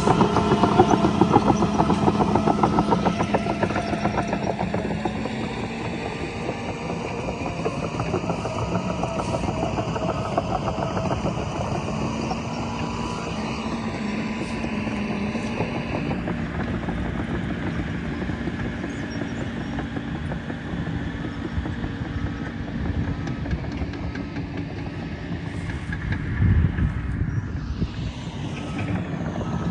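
A vehicle engine running steadily, with rapid fine pulsing and a held low hum.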